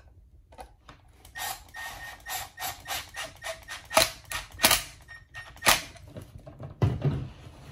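Cordless driver running screws into the housing of a Secoh EL-80-15 diaphragm air pump: a rapid run of clicks and knocks starting about a second in, with a few sharper cracks in the middle and a low thump near the end.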